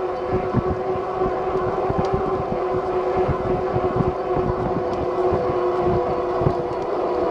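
Lectric XP e-bike's rear hub motor whining at a steady pitch while riding, with wind buffeting the microphone.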